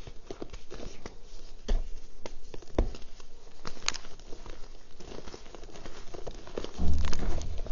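Reformed gym chalk being crushed and crumbled between fingers: dry crunching and crackling of breaking chunks with powder and bits falling into a plastic bowl. A dull, louder thump comes near the end.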